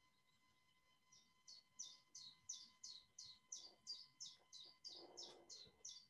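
Recorded common chiffchaff singing: a faint, even run of short high notes, about three a second, starting about a second in.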